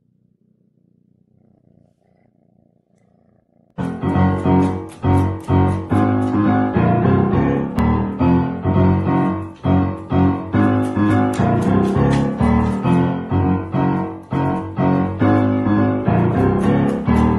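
Faint low purring of a kitten, then about four seconds in, loud piano music starts suddenly and plays on with a steady beat of struck chords.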